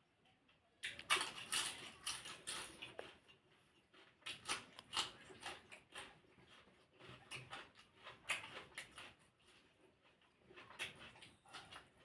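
Close-up eating sounds: a person chewing, with irregular wet mouth clicks and smacks coming in clusters.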